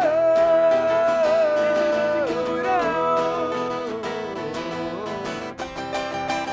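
A live rock band with guitars plays the closing bars of a song. A long held lead note slides down a step about two seconds in, over the band.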